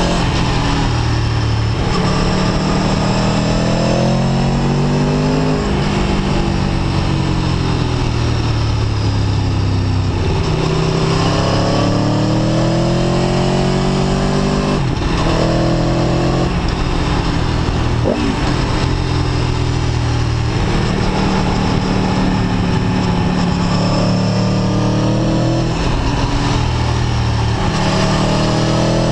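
Aprilia Tuono V4 1100 RR's V4 engine heard from on board while riding, its pitch rising and falling again and again as the throttle is opened and closed through the bends.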